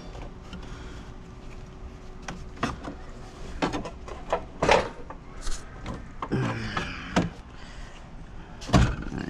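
Irregular knocks, clunks and scrapes of hand work on the radiator support and cooling fan assembly in a Ford Transit van's engine bay, as a large socket is wedged in to prop the assembly on a tilt. The loudest clunks come about halfway through and near the end.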